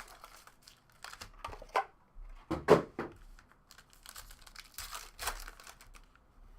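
Trading-card packs being torn open, their wrappers crinkling in irregular bursts, with the loudest tear a little before the middle.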